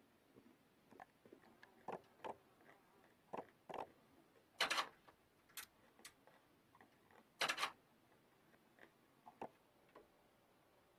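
Faint, irregular clicks and small snaps, with two louder, longer crackles about five and seven and a half seconds in.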